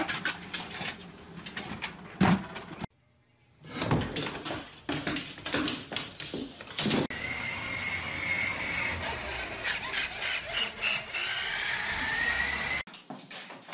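Knocks and clatter, a brief gap, then the small electric motor of a motorized toy dump truck whining as it drives, its pitch rising near the end.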